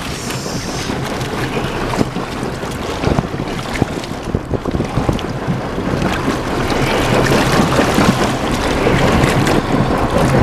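Water splashing against the side of a boat as a blue marlin thrashes alongside and is grabbed by the bill, under wind buffeting the microphone. The splashing and wind grow louder in the second half.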